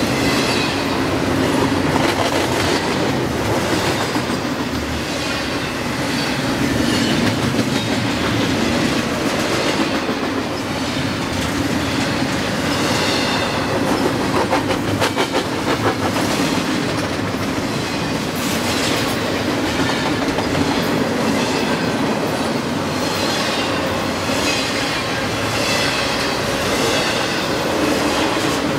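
Double-stack container train's well cars rolling past at speed: a steady rumble with high-pitched wheel noise swelling and fading as each car goes by, and a run of sharp clicks of wheels over rail joints about halfway through.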